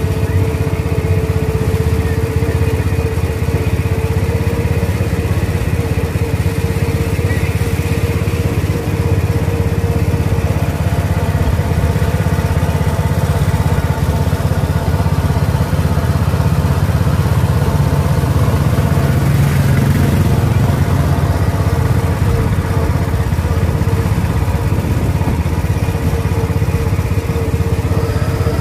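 Small engine of a jeep-style guided-track ride car running steadily at low speed, heard from on board close to the engine.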